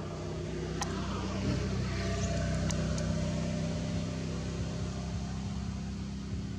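A motor engine running steadily, a low hum that swells a little in the first couple of seconds, with a few sharp clicks over it.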